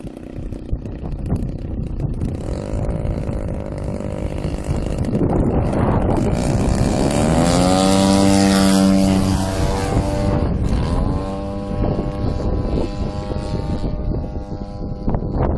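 Engine and propeller of a 35%-scale Sbach RC aerobatic plane opening up for the takeoff run. Its pitch rises about six to eight seconds in, it is loudest just after, then it settles to a steady drone as the plane climbs away.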